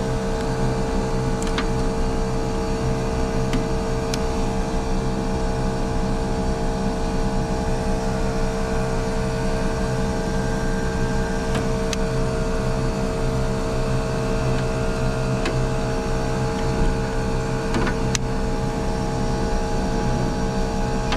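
Outdoor air-conditioning unit running with a steady hum that holds one strong tone, a few faint ticks here and there. One compressor is running while the other is damaged and not running.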